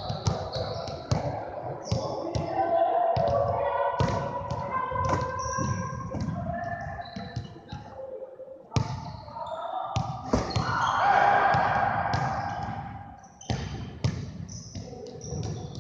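Basketballs dribbled and bouncing on a hardwood gym floor: a string of irregular thuds echoing in the large hall.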